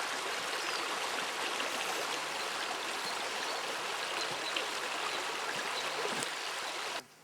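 Small river rushing and babbling steadily over its bed; it cuts off suddenly near the end.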